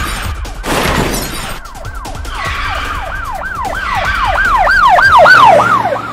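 Two loud noisy bursts in the first second and a half, then a police siren sound effect in quick falling yelps, about three a second, growing louder toward the end.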